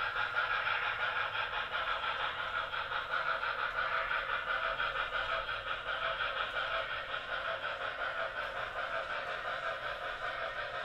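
Model Norfolk & Western Y6b Mallet steam locomotive running on a layout while shoving a string of ore cars: a steady chuffing and running sound with an even, rapid pulse.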